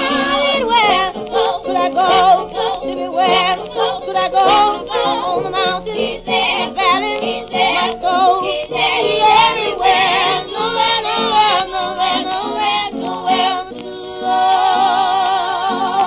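Gospel singers with heavy vibrato over a steady, beating accompaniment. Near the end they hold a long closing chord.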